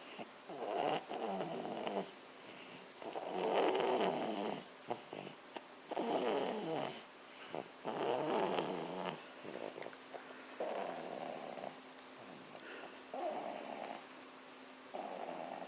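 Sleeping baby snoring: a rough snore about a second long, repeating every two seconds or so, about seven times.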